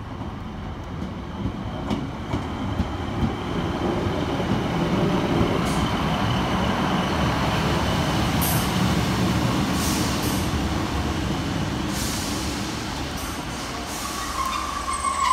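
Class 153 single-car diesel railcar arriving and passing close by, its engine running and wheels clicking over rail joints, loudest about five seconds in. It then eases away along the platform, with a brake squeal near the end as it slows to a stand.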